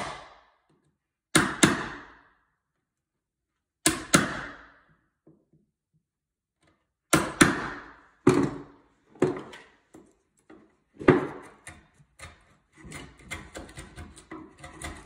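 Hammer blows on a wood chisel chopping out a shallow mortise for a newel post fastener plate: sharp blows every second or two, often in quick pairs. From about thirteen seconds in, quicker, lighter scraping and clicking as the chisel is pushed by hand to pare the recess flat.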